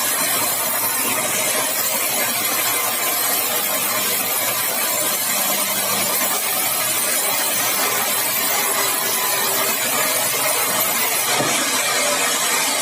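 Sawmill running steadily while sawing a large, dry, hard red balau log: an even, dense machine-and-cutting noise with no breaks, and a brief shift in the sound about eleven seconds in.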